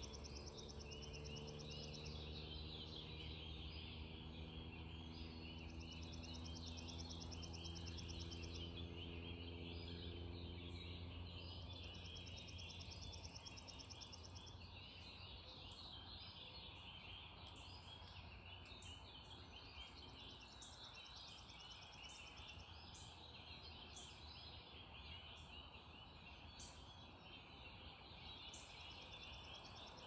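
Faint, steady low drone of the train's P42DC diesel locomotives in the distance, fading out about twelve seconds in, under a dense chorus of songbird calls that goes on throughout.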